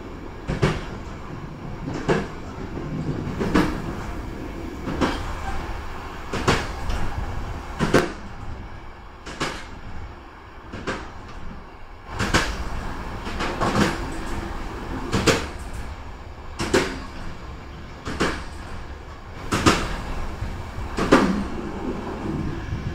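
Train wheels clacking over rail joints, one sharp knock about every one and a half seconds over a steady rolling rumble, heard from aboard the moving train.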